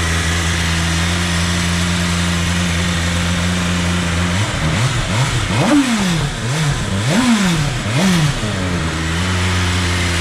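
BMW superbike's inline-four engine idling steadily, then revved in a quick series of about five throttle blips, each rising and falling back, starting a little after four seconds in, before settling back to idle near the end.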